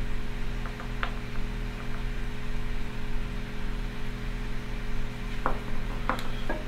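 Steady low electrical hum and hiss of room tone, with a few faint light clicks from a small plastic plug and string being handled: one about a second in and a few near the end.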